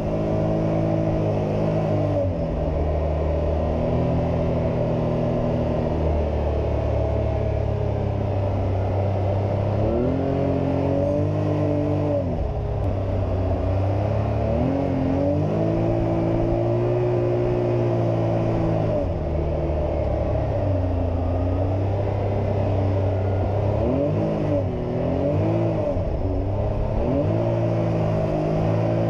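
2022 Can-Am Maverick X3 XRC Turbo RR's turbocharged three-cylinder Rotax engine running under way, heard from inside the cab. The revs rise and fall several times as the throttle is worked.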